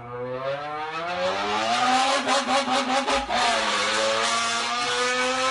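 A man's voice imitating a car engine through an empty can held to his mouth. The revs climb steadily, break into a fast stuttering rattle, drop about three seconds in like a gear change, and climb again.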